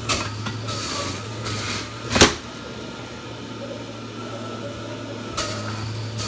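Breville Juice Fountain Elite centrifugal juicer running with a steady motor hum while watermelon pieces with their rind are pushed down the feed chute and shredded. Short bursts of grinding come as the pusher goes down, with a sharp clack about two seconds in and another burst near the end.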